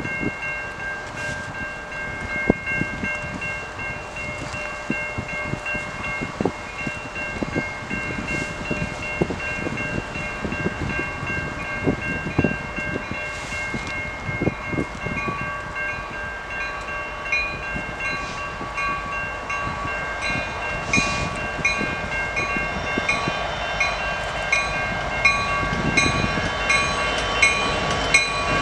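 Level-crossing warning bells ringing in a steady repeating pattern. An approaching CN diesel-hauled intermodal train grows louder over the last few seconds, its rumble building as the locomotives reach the crossing.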